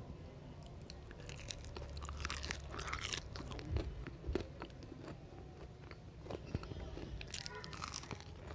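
A person chewing and biting into crunchy food close to the microphone, with bursts of crackly crunching about two seconds in and again near the end.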